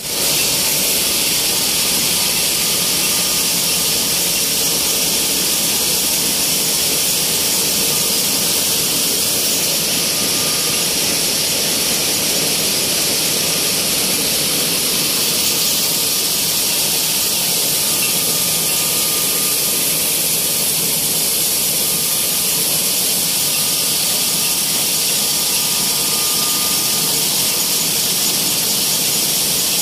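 Flour mill machinery running steadily: an even, high-pitched hiss and whine with no breaks, with faint steady tones beneath it.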